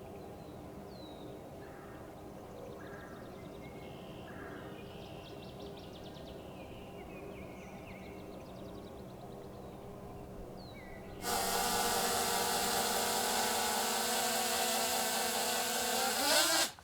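Birds chirping and trilling over a steady low hum. About eleven seconds in, a much louder sustained sound with many steady tones starts abruptly and cuts off suddenly near the end.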